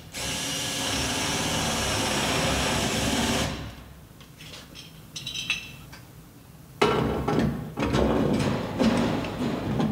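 Cordless drill running under load in two runs of about three seconds each, with small clicks between. It is boring recesses so the mast support's bolt heads sit flush.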